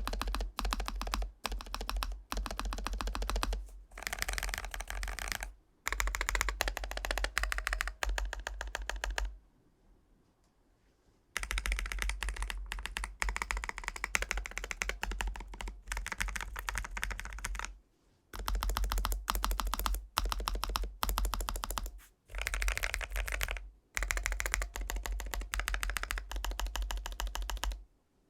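Fast typing on a Lofree Flow2 mechanical keyboard with Cloud switches: runs of rapid keystrokes broken by short pauses, the longest of about two seconds near the middle.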